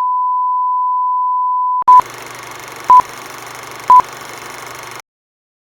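Intro sound effect: a steady electronic test tone for about two seconds, then three short beeps of the same pitch a second apart over a faint hum and hiss, like a film-leader countdown, cutting off abruptly into silence.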